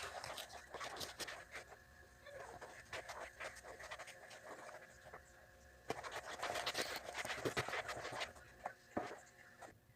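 Utensil stirring pizza batter of flour, egg, milk and oil in a bowl: irregular scraping and clicking against the bowl, busier for a few seconds past the middle.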